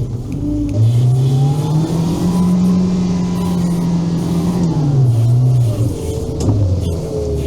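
Engine of a Veter 6x6 all-terrain vehicle revving up under load as it climbs a slippery hill in drive, holding high revs for a few seconds; the revs fall back about five seconds in and settle lower near the end.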